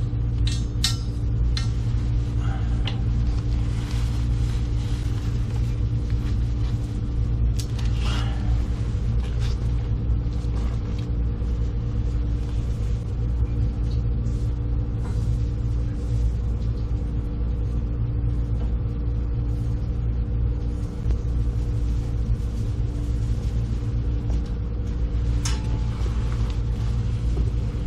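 A steady low mechanical hum with several fixed tones, with a few short clicks or knocks, at the start, about eight seconds in and near the end.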